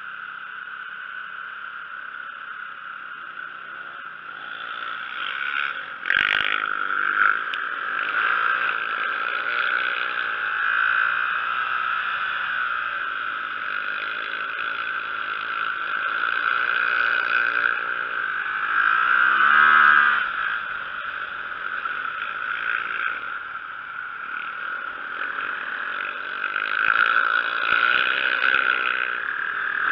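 Motorcycle engine revving up and down again and again while riding on ice, its pitch rising and falling with the throttle, loudest about two-thirds of the way through. A sharp knock comes about six seconds in.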